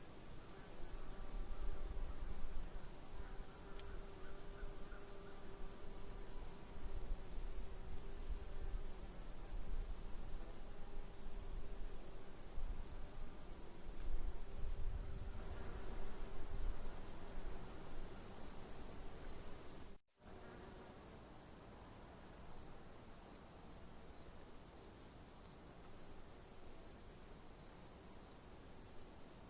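Crickets chirping at night: a steady high trill with a row of rapid, evenly pulsed chirps beneath it. The sound cuts out completely for a split second about twenty seconds in.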